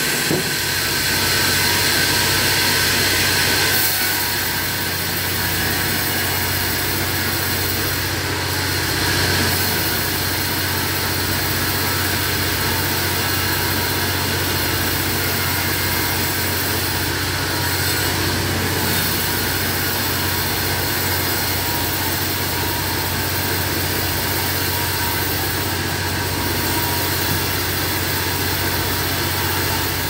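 Homemade band sawmill running steadily: a loud, even machine hum with a constant hiss over it.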